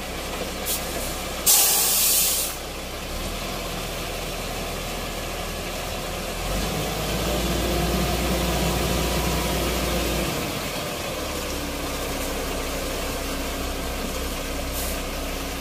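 A steady low engine-like hum, with a loud burst of hiss lasting about a second, about one and a half seconds in.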